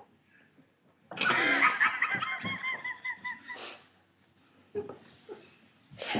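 Girls laughing loudly: near silence for about the first second, then a rapid run of short high-pitched laughs lasting a couple of seconds, and another loud laugh starting near the end.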